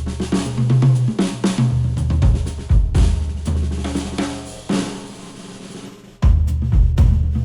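Instrumental music with a drum kit (snare, kick, hi-hat, cymbals) and a strong bass line, played back through a HIFIMAN planar-magnetic headphone and picked up by microphones. The mix thins and drops in level near the middle, then the full beat comes back in loudly about six seconds in.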